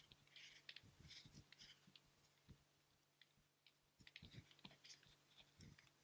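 Faint, irregular soft thumps of sneakers landing on the floor from running in place with high knees, with some light rustling; a brief lull about halfway through.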